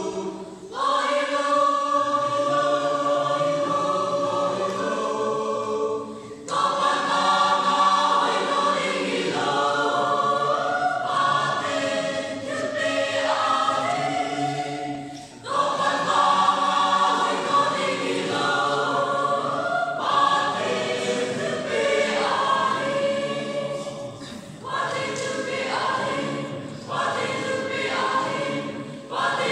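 Choir singing in harmony, in long held phrases with brief breaks between them.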